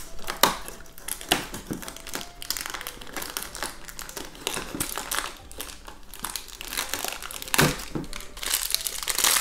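Perforated cardboard door of an advent calendar being pried open and a thin plastic blind bag pulled out of its compartment and handled, with irregular crinkling and a few louder sharp snaps.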